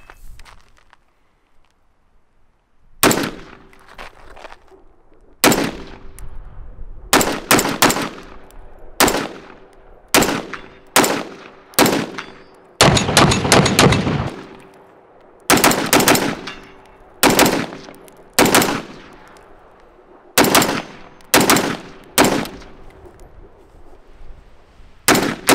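Cox Arms Wulf 5.56 AR pistol, with a 10.5-inch barrel and a VG6 Gamma muzzle brake, firing semi-automatic, mostly in quick pairs of shots. There is a fast string of about ten shots around the middle. The shooting starts about three seconds in.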